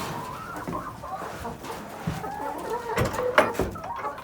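Domestic hens clucking in short, pitch-bending calls, with a few sharp knocks a little after halfway through.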